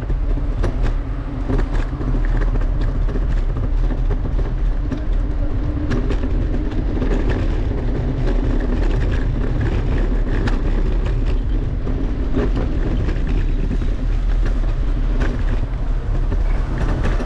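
Steady low rumble of riding along city streets, with scattered clicks and rattles over it.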